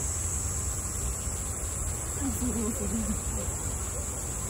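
Cicadas in summer trees giving a steady, high-pitched drone, with no break or change in pitch.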